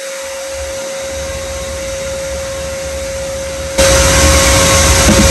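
Electric motor running with a steady whine, jumping suddenly louder about four seconds in.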